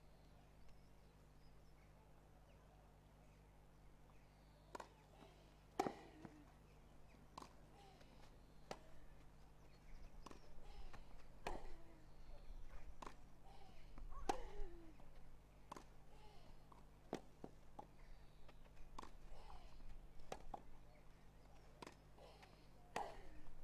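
Tennis rally on a grass court: after a few quiet seconds, a steady back-and-forth of racket strikes and ball bounces, each a sharp knock. A few of the hits are followed by a short falling vocal sound from the player hitting.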